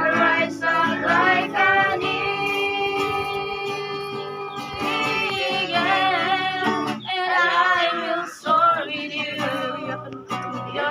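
Several voices singing together, women's and girls' voices to the fore, to a strummed acoustic guitar, with long held notes and a brief break about eight seconds in.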